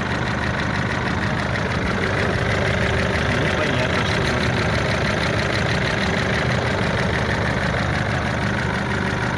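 Nissan Pathfinder's YD25 2.5-litre four-cylinder turbodiesel idling steadily with an even, rapid rhythm. The owner can't tell whether it is knocking and hears the noise coming from the cylinder head.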